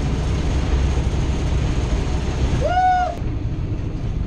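Wind and road rumble from a vehicle travelling at about 35 mph, with a short rising whoop of a voice near three seconds in; just after it the sound drops to a quieter, duller rumble.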